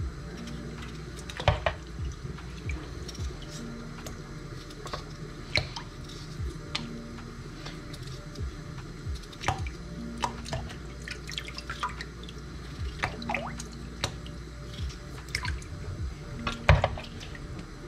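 Raw potato chunks dropping one after another into a bowl of water with small plops and splashes, between the soft clicks of a kitchen knife cutting through potato held in the hand.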